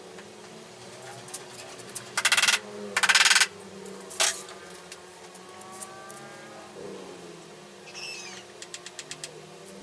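Old sewing machine stitching in two short, fast runs of rapid clicking, about two and three seconds in, followed by a single click.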